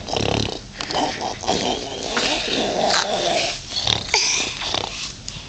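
A man making playful growling noises at a baby, in rough, breathy bursts with short breaks.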